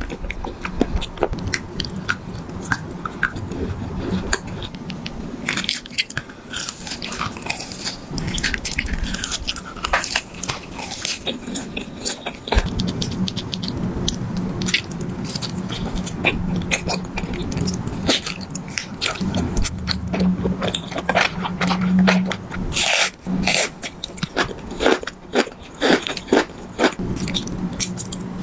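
Close-miked mouth eating sounds: bites, wet clicks and smacks, and crunches in irregular bursts over a steady low hum.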